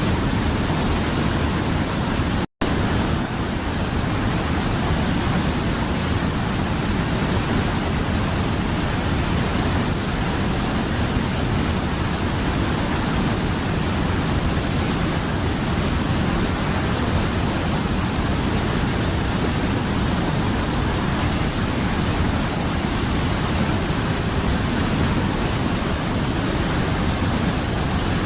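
Mountain river rushing steadily over its bed, an even wash of flowing water. The sound cuts out completely for an instant about two and a half seconds in, then resumes unchanged.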